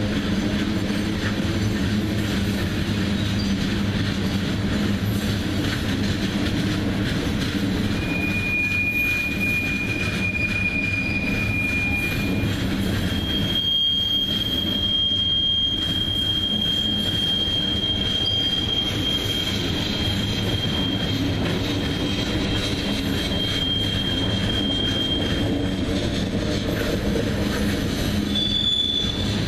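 Freight train cars (gondolas and covered hoppers) rolling past with a steady rumble of wheels on rail. Wheels squeal in long, steady high-pitched tones: one for about four seconds starting near the middle, then a longer one of about thirteen seconds, and a brief higher one near the end.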